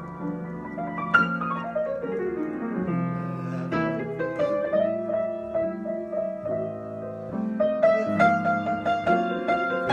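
Piano played in a free improvisation: a run of notes stepping down about a second in, then held chords, with quicker, brighter notes near the end.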